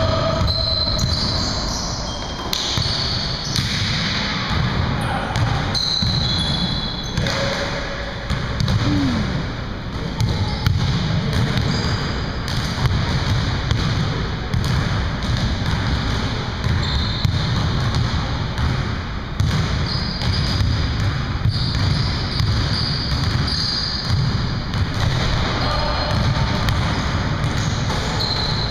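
Basketball game in a large gym: a basketball bouncing on the hardwood floor and sneakers giving short high squeaks, with the hall's echo.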